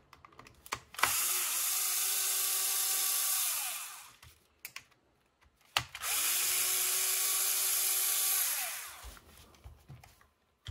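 Small power screwdriver run twice, each time for about three seconds, backing screws out of an RC car's chassis. The motor whine holds steady, then winds down at the end of each run. A few light clicks come before the first run.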